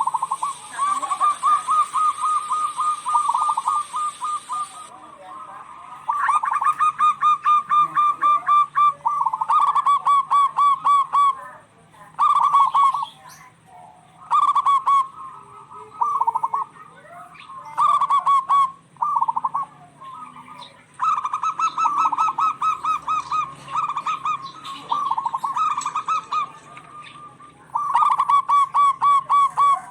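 Zebra doves (perkutut) cooing in rapid trilled bouts, several birds answering one another. Each bout is a fast run of short pulsed notes lasting one to four seconds, with brief pauses between bouts.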